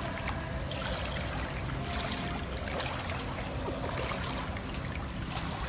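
Pool water splashing and sloshing as a small child wades through it, a steady watery noise with small scattered splashes.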